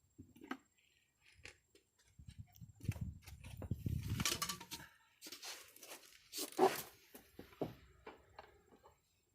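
Plastic door trim panel of a 2006 Buick Rendezvous being pried at with tools to free its tight pin-type fasteners: scraping, clicks and creaks, with the loudest sharp creak about two-thirds of the way in.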